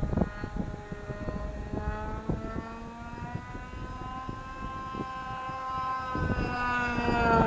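Small model-aircraft engine of a radio-controlled plane in flight, a buzzing whine whose pitch climbs slowly and then drops near the end, with wind buffeting the microphone.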